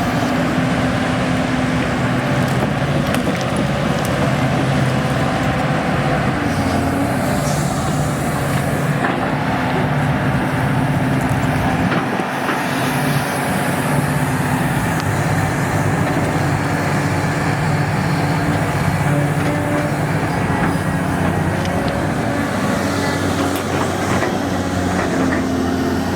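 Excavator's diesel engine running steadily under load, with a few faint knocks.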